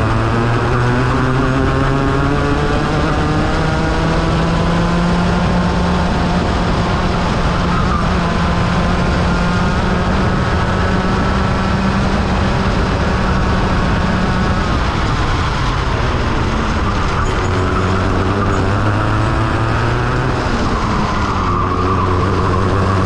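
Rotax Mini Max 125cc single-cylinder two-stroke kart engine heard from onboard, running hard on a lap. Its pitch climbs for the first few seconds, holds high, then drops and climbs again twice, about two-thirds of the way through and near the end, as the driver comes off and back on the throttle for the corners.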